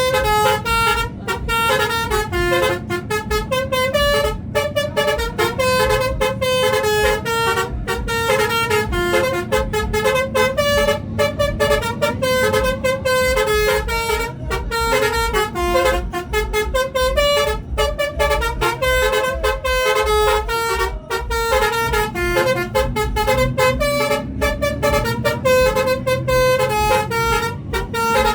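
Indonesian bus 'telolet' multi-tone horn playing a long, fast dance melody, one horn note quickly following another, over a rhythmic low pulsing.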